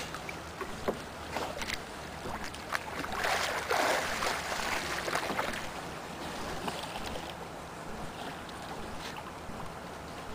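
Sea water lapping against a small boat's hull with small knocks, and a louder stretch of splashing about three seconds in as a snorkeler dives under.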